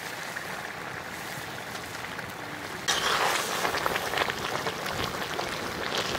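A pot of lentils, Malabar spinach and small fish simmering, with a steady low hiss that turns into louder, dense bubbling and crackling about three seconds in.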